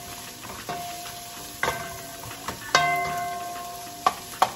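Stirring bell peppers and onions sautéing in a Dutch pot: a spoon knocks against the pot about five times, the strikes ringing briefly, the loudest a little under three seconds in, over a light sizzle of frying.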